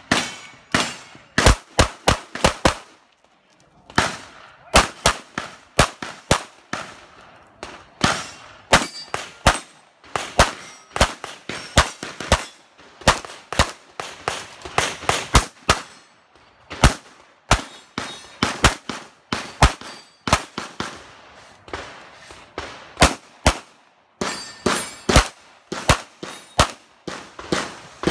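Limited-division semi-automatic pistol firing dozens of sharp shots, mostly in quick pairs, with short pauses between strings.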